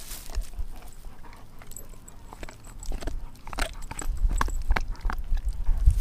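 Doberman gnawing on a frozen raw pig's foot: irregular crunches and wet clicks of teeth on bone, skin and frozen meat, coming thicker from the middle on, over a low rumble that grows louder near the end.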